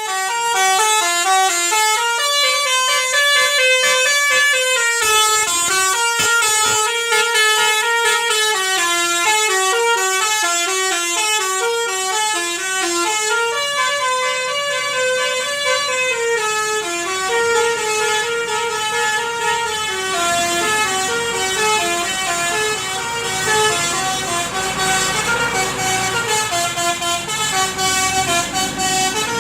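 Bus telolet horn, a multi-tone musical horn, playing a melody of short stepping notes without a break. A low engine rumble comes in underneath from about halfway.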